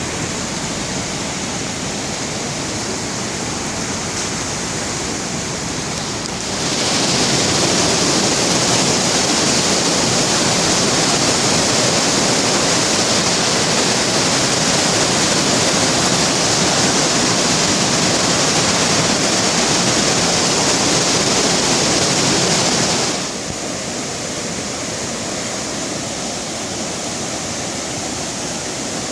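Floodwater of a swollen creek rushing in a steady, loud roar. From about six seconds in to near the end it gets louder and hissier, then drops back to the earlier level.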